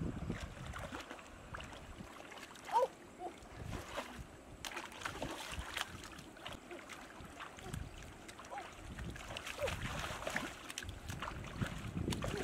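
Shallow river water splashing and sloshing as hands grope and feel among the rocks underwater for a fish. A brief chirp-like sound about three seconds in is the loudest moment.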